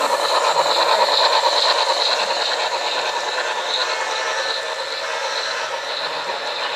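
HO scale model train, a steam locomotive hauling coal hopper cars, rolling along the track with a steady clattering rattle of wheels on rail. It is loudest about a second in as the cars pass close by, then eases slightly.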